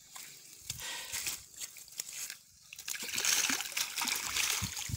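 A cast net full of catch and mud being dipped and sloshed in shallow river water at the shore, water trickling and splashing around it; the sloshing gets louder and busier about three seconds in.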